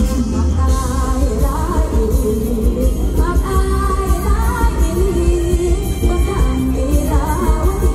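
A woman sings a mor lam (Isan Thai) song live into a microphone over an amplified band, with a heavy bass beat.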